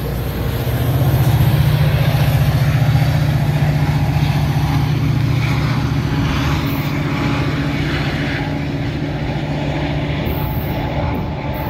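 Metra F40-series diesel locomotive running under power as it moves away, a steady low engine drone that eases off slightly toward the end.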